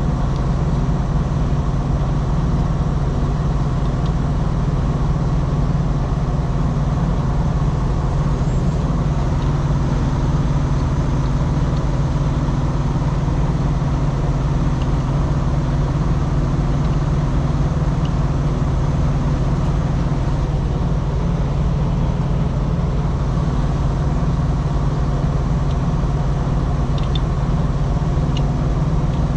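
Steady low drone of an idling truck engine, unchanged throughout, with a few faint light ticks.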